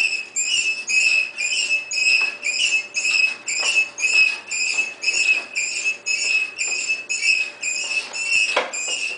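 Bouncy rocking horse squeaking rhythmically as a toddler bounces on it: a high-pitched squeak about twice a second, steady throughout.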